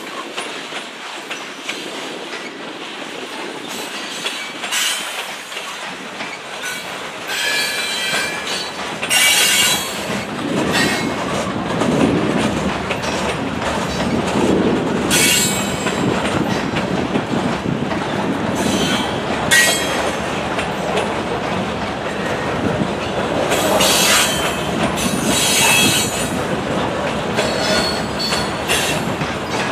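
Freight train of covered hopper cars rolling past close by, a continuous rumble and rattle of steel wheels on the rails. Several brief high-pitched wheel squeals rise above it, about six times.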